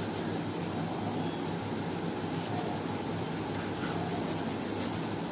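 Steady background hum and hiss, with no distinct knife strokes or knocks standing out.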